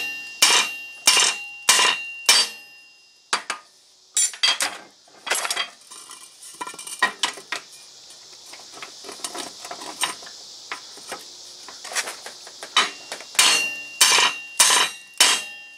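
Steel hammer striking a driveshaft yoke held in a vise, knocking the old U-joint's bearing caps out: sharp metallic blows that ring, about one every half second, in a run at the start and another near the end. Lighter metal clinks in between.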